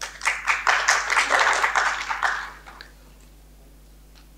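A short round of audience applause that starts at once, swells and dies away about two and a half seconds in.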